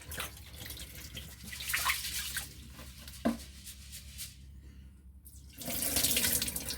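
Water in a pot of rice being rinsed, with a few drips and a short knock; then a kitchen tap runs strongly into the pot from about two-thirds of the way in.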